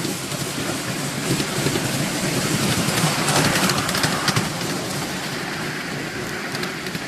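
Ride noise aboard a miniature railway train running along the track: a steady rumble and clatter of wheels on rail under a hissing rush that swells in the middle and eases off toward the end.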